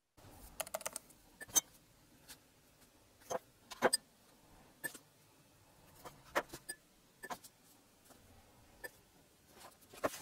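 Scattered small clicks and taps of gilding tools being handled at the bench, around the gilder's cushion, with a faint room hiss between them.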